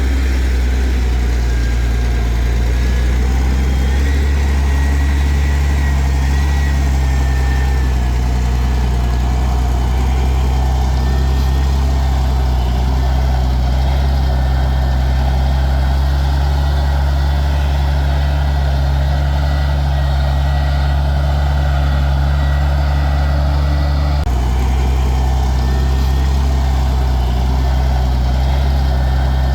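Heavy diesel engine of earth-moving machinery running steadily at a constant low pitch, with a thin high whine above it. The engine sound shifts abruptly about 24 seconds in.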